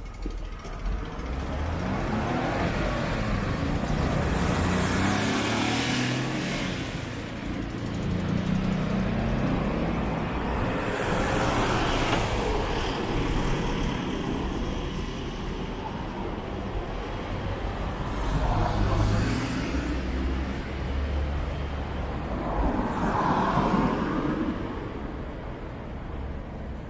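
Road traffic: cars passing close by one after another, each one swelling and fading, about four passes over steady street noise.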